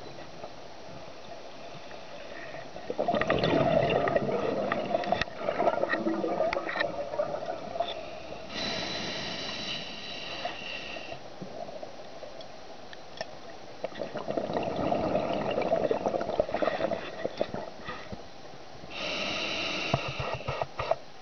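Scuba diver breathing through a regulator underwater: a long bubbling exhale, then a hissing inhale with a whistling tone, heard twice.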